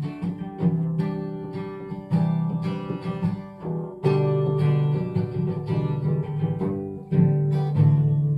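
Acoustic guitar playing an instrumental passage of strummed and picked chords, with no singing.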